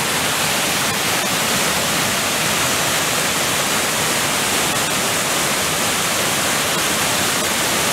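Waterfall in flood, running far higher than normal after heavy rain: a steady, loud rush of white water pouring over rocks.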